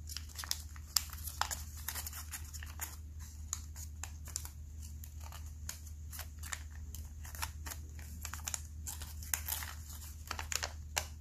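Origami paper being folded by hand: a steady run of small crinkles and taps as inside-reverse folds are pushed in and creased flat, over a faint low hum.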